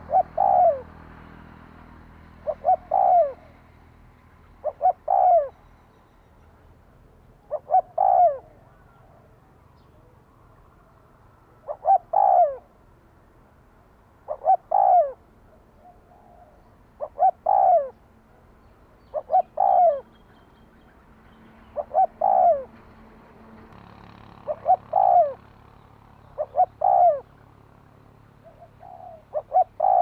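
Spotted dove cooing in a steady series: a short phrase of one or two quick notes and a longer, downward-bending coo, repeated about every two to two and a half seconds.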